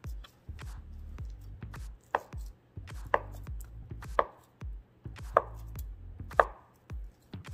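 Chef's knife cutting a block of Spam into cubes on a plastic cutting board: five sharp knocks of the blade striking the board, about one a second from two seconds in, with lighter cutting ticks between.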